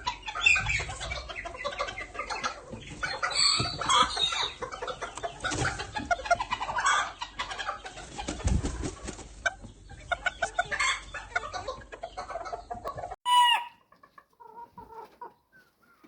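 Chickens clucking and calling over one another. About thirteen seconds in, the sound cuts off abruptly and one loud call follows, then a few faint clucks.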